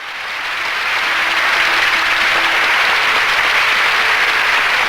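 Studio audience applauding, swelling over about the first second and then holding steady and loud.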